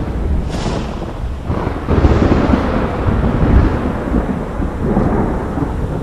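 Thunder: a short sharp crack about half a second in, then a long rolling rumble that swells twice and fades near the end, over a steady storm hiss.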